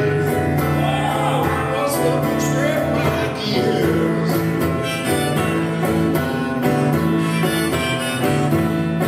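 Live solo performance: a steel-string acoustic guitar strummed steadily under a man singing.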